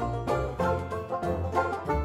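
Instrumental background music: a quick run of plucked notes over a steady bass line.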